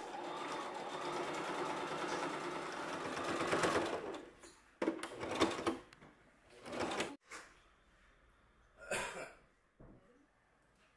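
Electric household sewing machine stitching a seam through fabric. It runs steadily for about four seconds, then goes in several short runs with pauses between them.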